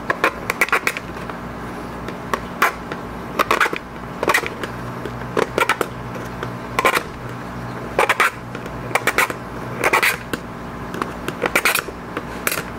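Small screwdriver tip scraping and gouging a groove around the edge of a part in short, irregular strokes, roughing the surface so silicone has something to grip.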